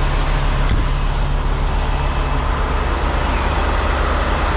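Kenworth T660 semi truck's diesel engine running steadily, heard from inside the cab, with one short click a little under a second in.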